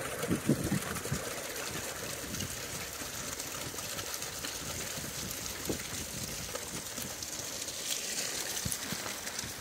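Water running steadily in an open-air hot-spring pool, an even hiss, with a few low thumps near the start.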